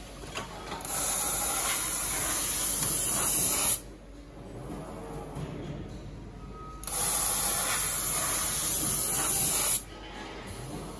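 CNC vertical V-groover making two cutting passes along a steel sheet. Each pass is about three seconds of loud, even hissing scrape, starting about a second in and again near seven seconds, with a quieter machine hum between them.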